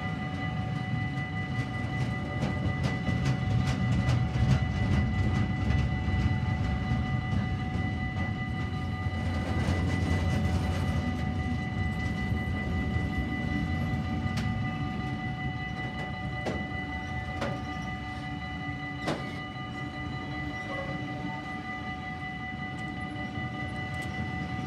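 Freight train of sliding-wall covered wagons rolling past: a steady low rumble of wheels on the rails, with clicks and a few sharp knocks in the second half, and steady high-pitched tones. The rumble is loudest in the first half and eases toward the end.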